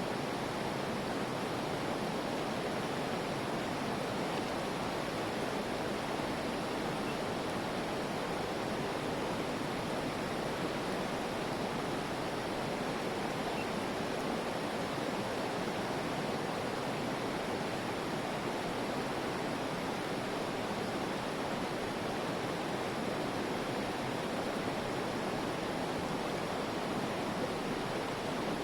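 Putna waterfall's water rushing, a steady, unbroken roar with no change.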